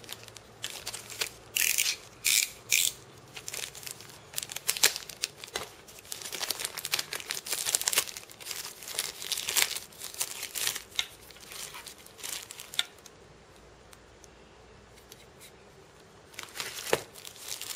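Thin plastic packaging bag crinkling and rustling in irregular crackly bursts as a phone charger is unwrapped from it, with a quieter stretch about three-quarters of the way through before the rustling resumes.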